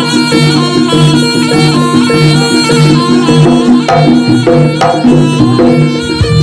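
Loud live jaranan gamelan music: drums and struck percussion keep a steady pulse of about two beats a second under long held melody notes, with a couple of sharp struck accents about four and five seconds in.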